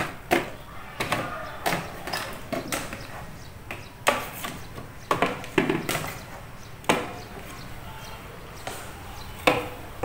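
Irregular knocks and clatters of objects being handled and set down, about a dozen sharp strikes spread unevenly with quieter rustling between.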